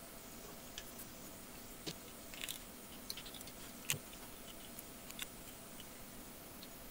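Faint, scattered small plastic clicks and handling noises from a small fashion doll whose snap-on dress is being unfastened and pulled off, the loudest click about four seconds in.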